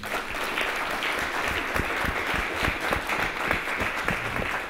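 Audience and panel applauding after a talk, a steady patter of many hands clapping that dies down right at the end.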